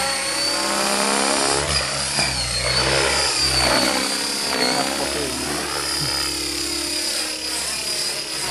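Electric Outrage 550 RC helicopter in flight: the whine of its motor and rotors, rising and falling in pitch again and again as it manoeuvres.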